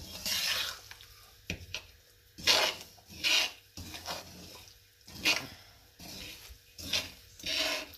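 Slotted metal spatula scraping round a stainless steel karahi as semolina is stirred and roasted in oil, a rasping stroke about once a second.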